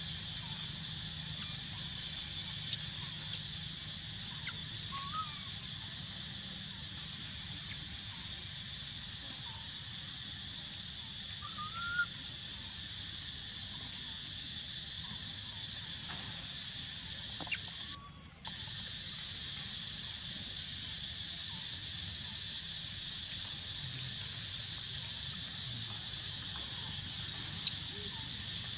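Steady high-pitched drone of forest insects throughout, with a few faint short rising chirps over it. The sound cuts out for a moment about two-thirds of the way through.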